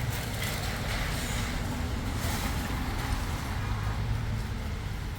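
A motor vehicle running: a steady low rumble with a hiss of noise over it.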